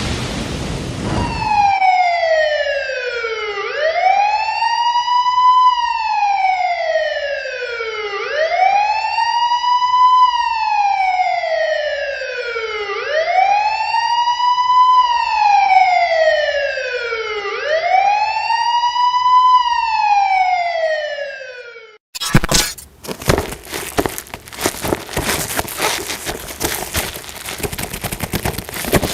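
A wailing siren rising and falling slowly, one sweep every four to five seconds, five times over. It cuts off abruptly about three-quarters of the way through, giving way to a dense crackling, rustling noise.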